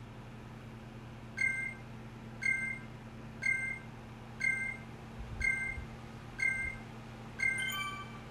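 A short electronic beep repeating about once a second, seven times, over a steady low hum; near the end a few higher tones join in.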